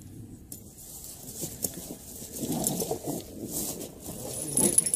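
Footsteps and rustling in dry leaves and brush, growing louder as people close in, with a few sharper clicks and knocks, the loudest near the end.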